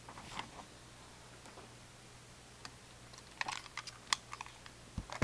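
Quiet room with a handful of light clicks and taps, several short sharp ones in a cluster about three to four seconds in, then a low thump near the end.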